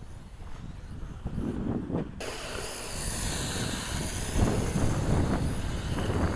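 Wind buffeting the microphone in gusts, a low rumble that grows louder as the wind picks up. About two seconds in, a high hiss sets in abruptly and stays.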